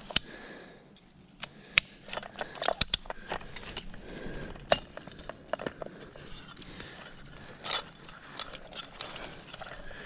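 Scattered sharp metallic clicks and knocks, irregularly spaced, one every second or two, from a ratcheting mechanism or gear being handled.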